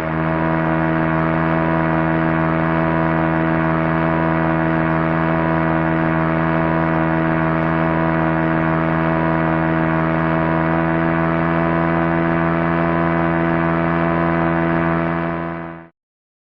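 Steady held drone of several sustained tones, most likely an ambient music pad, unchanging in pitch; it fades quickly and stops shortly before the end.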